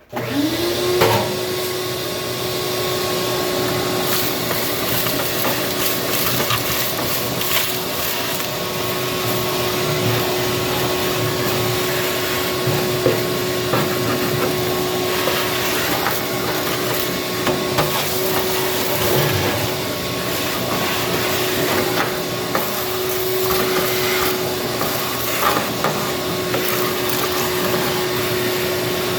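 Shop-Vac wet/dry vacuum switched on, its motor spinning up within a second to a steady loud whine and rush of air, sucking debris out of the bottom of a Weber Genesis gas grill. Occasional short knocks sound as the nozzle and debris hit the grill.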